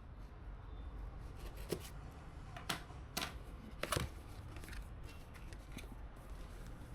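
A handful of sharp clicks and snaps from PC parts being handled and fitted, over a low steady hum.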